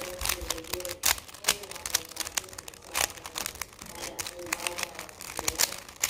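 Quick, irregular plastic clicking and clacking of a 3x3 Rubik's cube as its layers are twisted by hand, several clicks a second.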